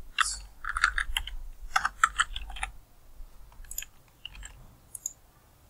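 Typing on a computer keyboard: a quick run of keystrokes for about the first two and a half seconds, then a few scattered clicks.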